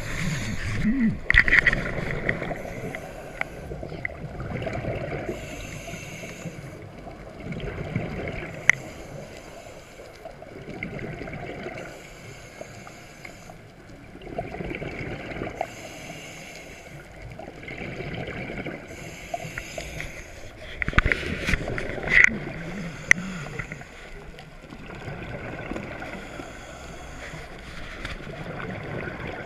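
Scuba breathing through a regulator underwater: a hissing inhale every few seconds, each followed by a low bubbling rumble of exhaled air, with a few sharp clicks near the end.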